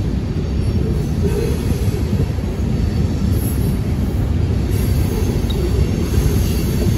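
Steady low rumble of wind buffeting the microphone outdoors, loud and unpitched, with no clear engine note.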